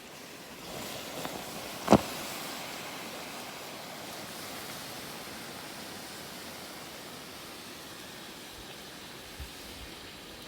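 A steady rushing noise, with one sharp knock about two seconds in.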